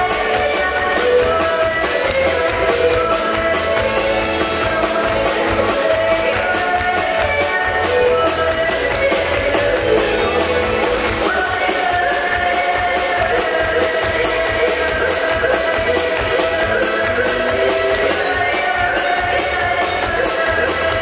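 Live country band music: a woman singing into a microphone over electric bass guitar, drums and guitar.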